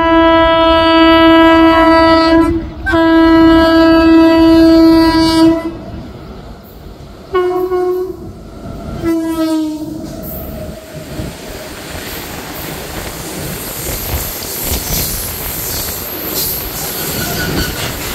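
WAG-9HC electric locomotive's air horn sounding two long blasts and then two short ones, the last dropping in pitch as the locomotive passes. Then a long rake of BCNA covered freight wagons runs by at speed, a steady rumble with wheel clatter over the rail joints.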